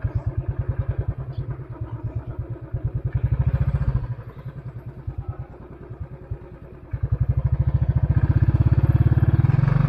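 Royal Enfield Classic 500's single-cylinder engine running at low speed with its steady beat of exhaust pulses. The throttle eases off about four seconds in and the engine drops to a quieter beat, then opens up again about three seconds later.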